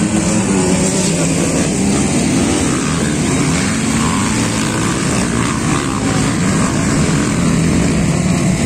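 Several motocross dirt bikes racing on a dirt track, engines revving up and down repeatedly as they pass and take a jump.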